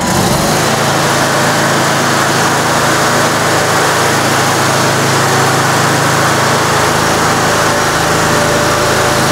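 The engine of an ABI Force Z-23 stand-on attachment machine running steadily as the machine is driven across the floor. It steps up to a louder, higher-speed run right at the start.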